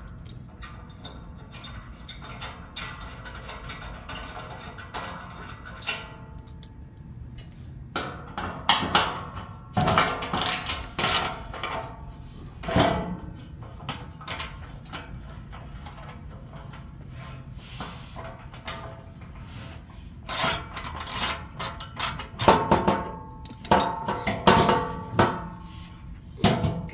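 Front skid plate of a Toyota Tacoma clanking and scraping as it is worked loose from its front hooks, in two spells of clattering knocks with some ringing, about eight and twenty seconds in.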